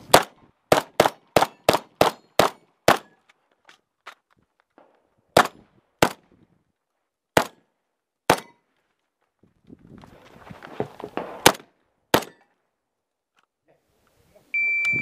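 A Vepr-12 12-gauge semi-automatic shotgun fired in quick strings. Eight rapid shots come in the first three seconds, four more follow about a second apart, then there is some shuffling and two last shots. A short steady electronic beep starts just before the end.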